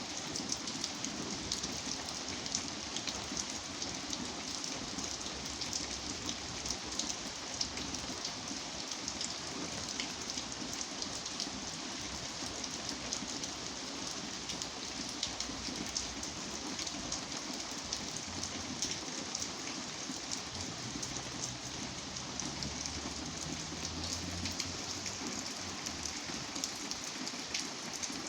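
Steady rain falling, a dense hiss with many individual drops ticking through it. A faint low rumble comes in during the second half.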